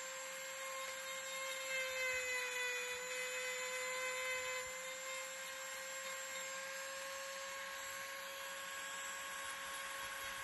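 Corded Ryobi 1.2 amp rotary tool running at high speed with a steady whine, its small carving bit grinding into the wood of a hiking stick.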